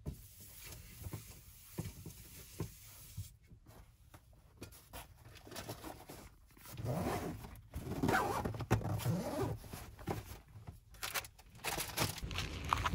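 Handling and rustling as things are tidied by hand: a tissue wiped over a tabletop, then a soft fabric bag handled, with a louder stretch of rustling about seven seconds in.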